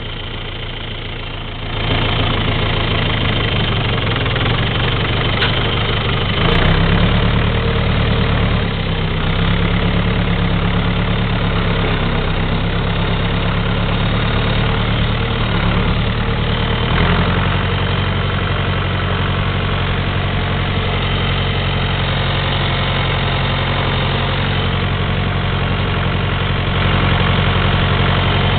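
John Deere 2550 tractor's three-cylinder diesel engine running as the tractor drives, heard from the operator's seat. It gets louder about two seconds in and changes pitch a couple of times, near seven and seventeen seconds.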